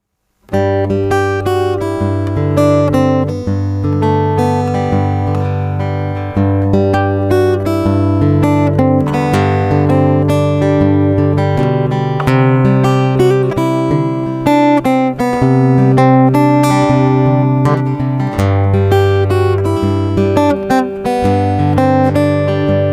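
Background music played on acoustic guitar, starting about half a second in.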